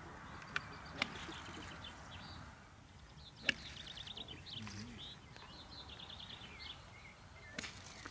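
A golf iron striking the ball once, a single sharp click about three and a half seconds in. Birds chirp in short repeated trills throughout, over a faint outdoor background.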